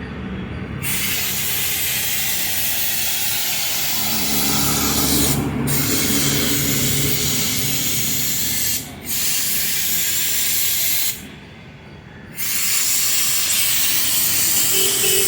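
High-pressure water jet from a pressure washer hissing as it sprays. It starts about a second in and cuts off briefly twice, then for just over a second near two-thirds through before resuming. A low engine or pump hum runs underneath.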